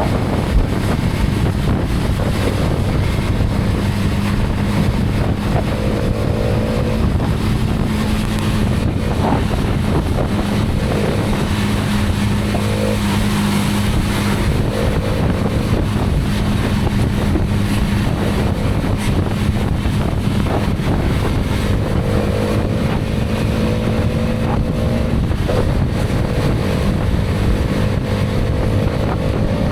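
Hero Karizma XMR's 210 cc single-cylinder engine running at a steady cruise, under a loud rush of wind on the microphone.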